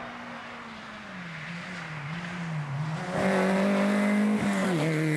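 Rally car engine approaching at speed. Its note wavers lower as the driver comes off the throttle for the bend, then about three seconds in it gets suddenly louder under hard acceleration, and near the end the pitch drops with an upshift.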